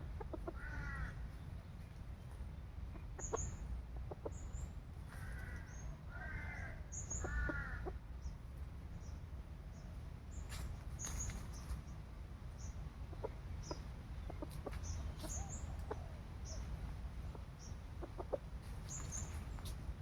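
Chicken clucking in short runs of quick notes, once near the start and again from about five to eight seconds in. Small high-pitched chirps are scattered throughout over a steady low rumble.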